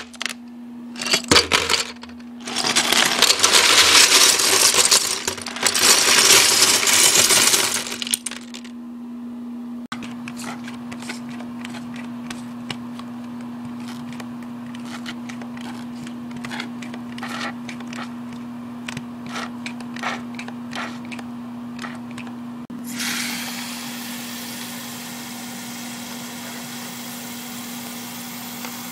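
Loose plastic LEGO bricks clattering loudly as they are poured and shaken together for several seconds, then scattered clicks of single pieces being dropped. About 23 seconds in a steady hiss starts, with a constant low hum underneath throughout.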